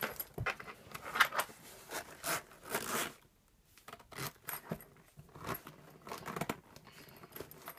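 Zipper of a Smiggle hardtop pencil case being pulled shut in a series of short zipping strokes, with a brief pause about three seconds in, mixed with the case being handled.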